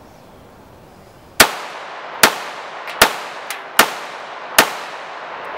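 Beretta 80X Cheetah .380 ACP pistol firing five shots at a steady pace, about one every 0.8 seconds, starting about a second and a half in. Each shot trails off in a short echo.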